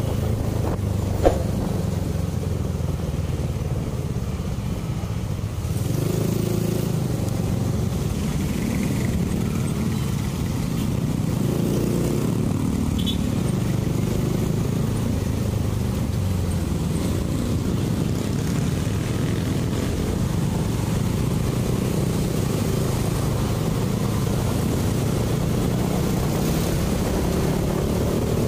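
Motor scooter engine running while riding, its pitch rising and falling with the throttle over a steady rush of noise. A single sharp click comes about a second in.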